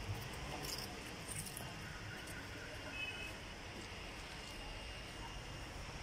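Steady low background rumble with a few faint, brief high tones about halfway through; no distinct sound from the bull.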